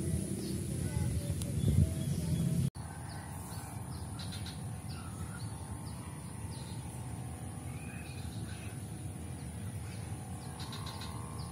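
Outdoor ambience with small birds chirping here and there. A loud low rumble fills the first few seconds and cuts off abruptly about three seconds in, leaving a quieter steady background.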